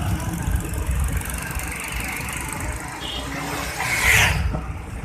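Moving road vehicle: steady low rumble of engine and road noise as it drives along, with a brief loud hissing whoosh about four seconds in.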